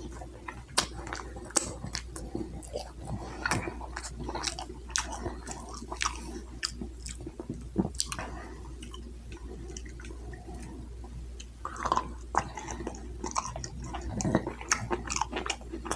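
A person chewing and biting into shrimp close to the microphone, with scattered wet mouth clicks and smacks over a steady low hum.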